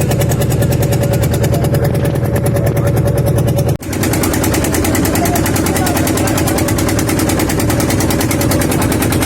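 An engine running steadily close by, with a fast, even chugging beat. It drops out for an instant about four seconds in, then carries on with a slightly different tone.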